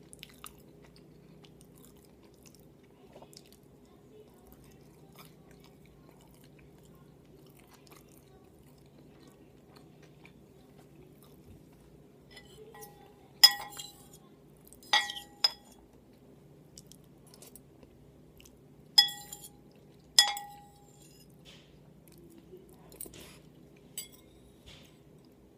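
Faint chewing and mouth clicks while eating, then a utensil clinking sharply against a dish five times in the second half, each clink ringing briefly, with a couple of lighter taps near the end.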